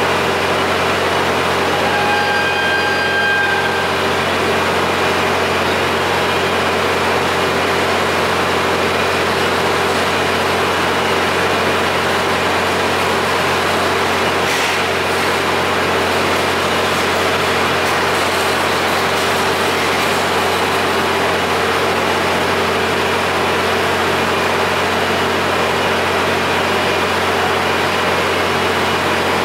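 Steady drone of an idling diesel railcar engine, with a low hum and several steady low tones. A short electronic beep sounds about two seconds in, and a brief hiss comes about halfway through.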